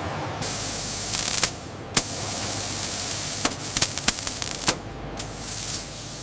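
Hissing bursts of air, the longest lasting a couple of seconds, with several sharp clicks between them.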